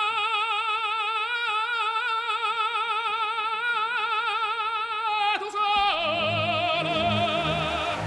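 Operatic singing: one long held note with wide vibrato. About five and a half seconds in it breaks off to a new note, with low accompaniment joining underneath.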